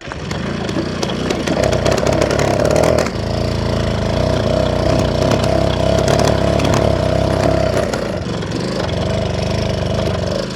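Old moped engine being pedal-started, catching and running unevenly, with a clattery rattle. It falters about three seconds in and again around eight seconds, the sign that it is not getting enough fuel.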